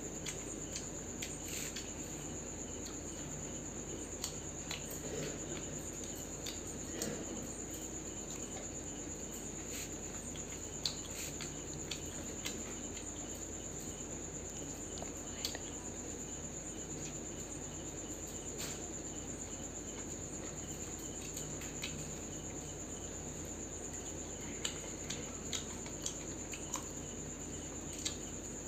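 Crickets chirping steadily, a continuous high trill, with scattered light clicks and taps from eating by hand off steel plates.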